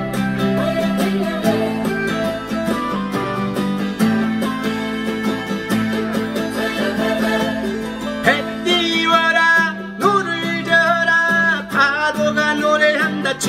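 Crafter acoustic guitar strummed in a steady rhythm, and a man's voice comes in singing a Korean trot song about two-thirds of the way through, with a short break about ten seconds in.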